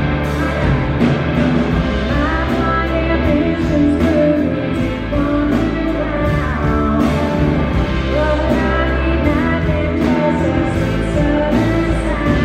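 Live blues-rock band playing: electric guitar over bass and drums at a steady, loud level.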